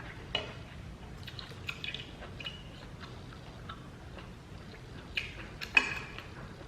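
Close-miked eating of a king crab seafood boil: chewing with scattered small clicks and wet smacks, and two louder sharp clicks about five and six seconds in.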